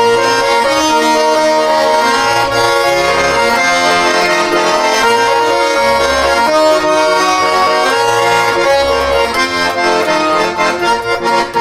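Russian garmon (button accordion) playing an instrumental interlude of a folk-style song: held melody chords over a bass line that changes every second or so.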